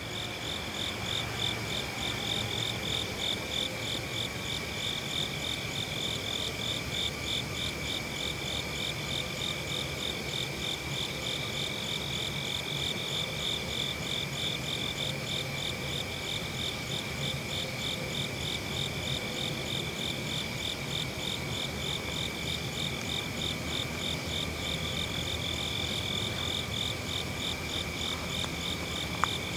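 Steady chorus of insects chirping in a rapid, even pulse at two high pitches, with a single sharp click near the end.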